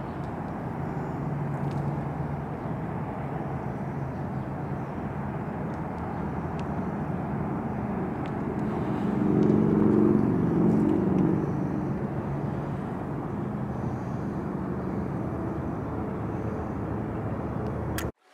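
Outdoor background noise of distant road traffic: a steady low hum that swells as a vehicle passes about nine to eleven seconds in, and cuts off suddenly near the end.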